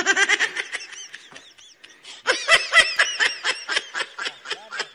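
Loud, high-pitched laughter in a rapid string of 'ha-ha' bursts. It eases off briefly about two seconds in, then comes back harder.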